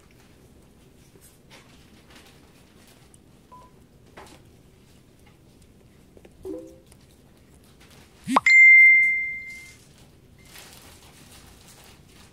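A single loud ding about eight seconds in: one high ringing tone that fades away over about a second and a half. Before it, faint soft clicks and a brief low squeak.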